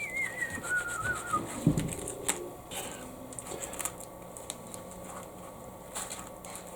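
A high, wavering whine that falls in pitch, heard in two short stretches in the first second and a half, followed by a dull thud and scattered light clicks.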